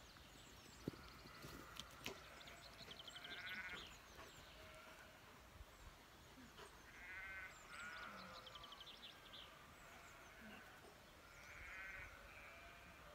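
Faint animal calls, quavering and repeated every three to four seconds, over a quiet outdoor background, with a quick trilling pattern higher up. Two brief sharp clicks come in the first two seconds, the first about a second in.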